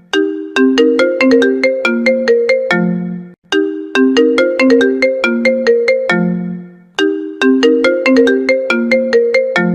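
An iPhone ringtone playing: a melody of quick, bright notes that each die away fast. The phrase ends on a lower, longer note and repeats about every three and a half seconds, three times over.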